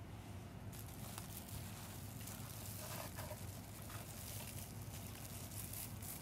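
Plastic bubble wrap crinkling and rustling as a wrapped package is handled, starting about a second in, over a low steady hum.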